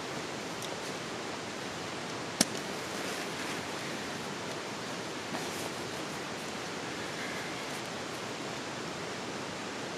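Steady, even rushing noise with one sharp click about two and a half seconds in.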